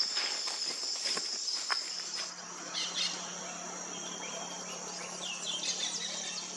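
Amazon rainforest ambience: a steady high insect trill that stops about two seconds in, followed by many short, falling bird calls overlapping one another.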